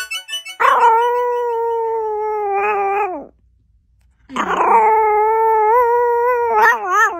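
A Chihuahua howling: two long, steady howls about a second apart, each wavering in pitch as it ends.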